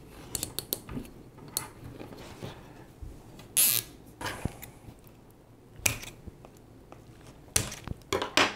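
Nylon cable ties being pulled tight around a pair of copper pipes, ratcheting in short rasps and clicks, the loudest about three and a half seconds in. Near the end, a few sharp snips of scissors cutting off the tie tails.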